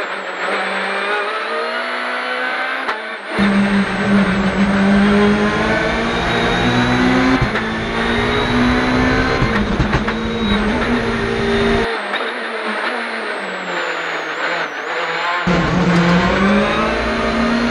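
Hyundai i20 WRC rally car's turbocharged 1.6-litre four-cylinder engine heard from inside the cockpit at speed, loud, its revs repeatedly climbing and dropping as it goes up and down the gears.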